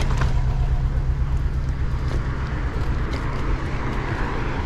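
Wind rumbling steadily on a GoPro 10's microphone while cycling, with traffic noise underneath and a few light clicks near the start.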